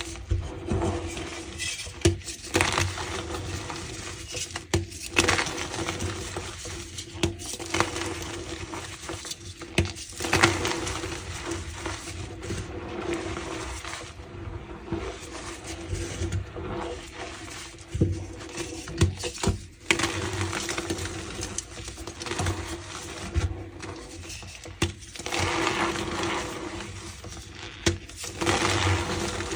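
A reformed block of gym chalk being crushed, crumbling with a dusty crunch and squeaky sounds, broken by frequent sharp cracks.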